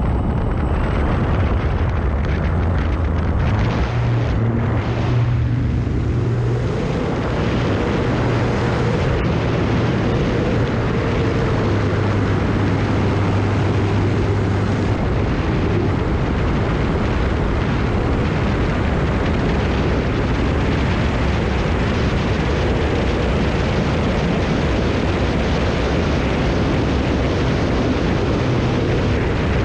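Radio-controlled model F4U Corsair's motor and propeller running at high throttle through the takeoff run and climb-out, heard from a camera mounted on the airframe. A steady heavy rush of wind over the microphone is mixed in.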